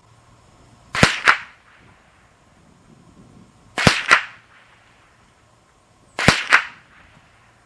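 Three .22 LR rifle shots from a semi-automatic Ruger 10/22 firing CCI Mini Mag rounds, spaced about two and a half to three seconds apart. Each sharp crack is followed about a quarter second later by a second crack.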